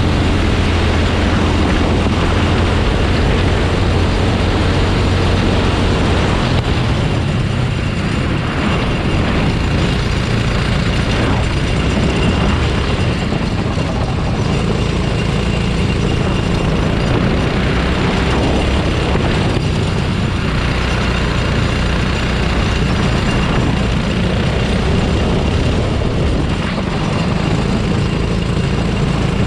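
Rental go-kart engine running at racing speed, its note shifting a few times, under a steady rushing noise.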